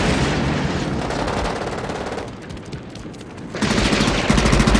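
Rapid automatic gunfire, dense and continuous for about two seconds, then fading. About three and a half seconds in, a louder, deep rumble of an explosion with fire comes in.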